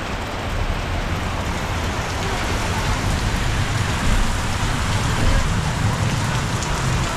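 Steady rain falling and pattering on surfaces, with a low rumble underneath.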